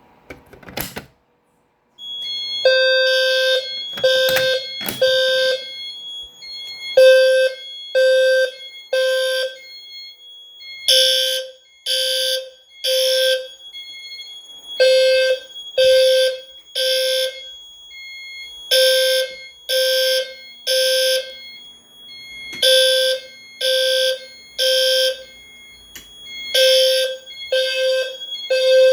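Fire alarm horns sounding the temporal-three evacuation pattern: three blasts about a second apart, then a pause, repeating every four seconds. The alarm was set off by a manual pull station, and a sharp click about a second in comes just before the horns start.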